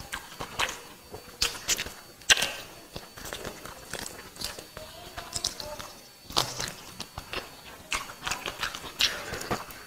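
Close-up eating sounds of a person eating biryani by hand: irregular wet clicks and smacks of chewing, along with fingers mixing rice on a banana leaf.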